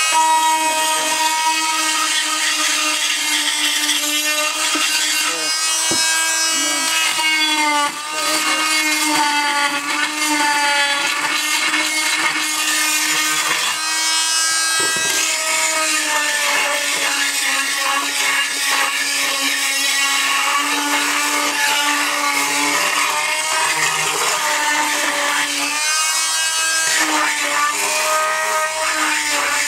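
Chicago Electric oscillating multi-tool with a carbide-grit tile blade running continuously, grinding out grout and taking the edge off an old floor tile. Its steady whine dips in pitch and recovers several times.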